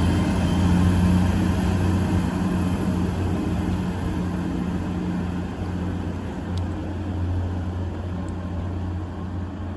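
A diesel train's engines running with a steady low drone and a faint high whine, slowly fading.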